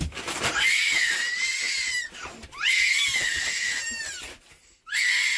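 A young child screaming three times: long, very high-pitched shrieks of a second or two each, the pitch wavering slightly and gliding down at the end of the second one.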